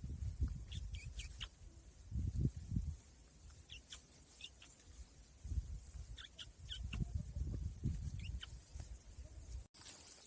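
Birds chirping: short high chirps, a few at a time and repeated every second or two, over low rumbling bursts.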